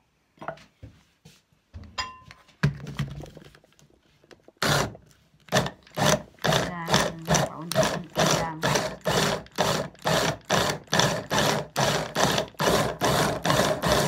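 Tescom hand blender with its chopper attachment pulsed on and off in short bursts, about two a second, cutting cold butter into flour for a pie crust. A few knocks and clicks come first as the bowl's lid and motor unit are fitted.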